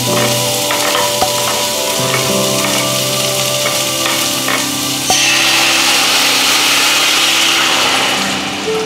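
Minced garlic, ginger and chopped chillies scraped off a wooden chopping board into a hot stainless steel frying pan, sizzling in oil with onions, with a few knocks of the board against the pan. The hiss grows louder about five seconds in and eases near the end. Soft background music throughout.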